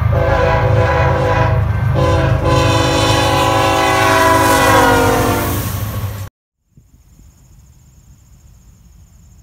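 BNSF freight locomotive's air horn blowing a long blast with a short break about two seconds in. The blast fades a little, then cuts off abruptly about six seconds in, leaving a faint steady high-pitched drone.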